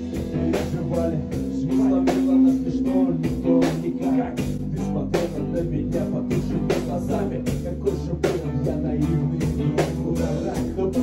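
A band playing an instrumental passage: a drum kit keeps a steady beat of about three to four hits a second under guitar and bass guitar.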